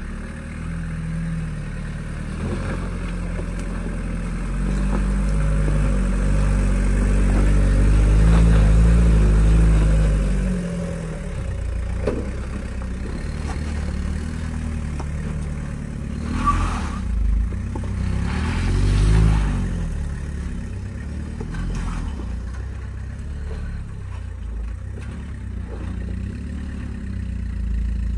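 Old solid-axle Toyota Hilux 4x4's engine working under load as the truck crawls over rock steps. The revs build to their loudest about a third of the way through, then drop back. Past the middle come a few knocks and scrapes from tyres and underbody on rock and another short burst of revs.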